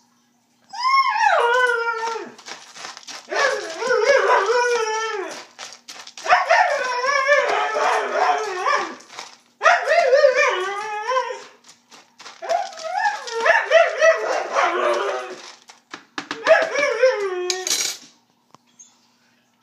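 Siberian husky "talking": long, howl-like vocalisations whose pitch slides up and down, in about six drawn-out stretches with short breaks between them. It is the husky's vocal demand for her dinner as it is being prepared.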